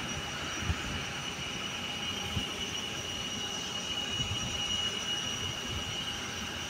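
Steady jet engine noise with a high, even whine from a taxiing jet airliner, heard from inside a vehicle over its low, uneven rumble.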